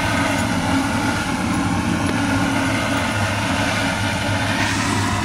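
A steady mechanical drone with a low hum: an engine running at an even speed, holding constant with no revving.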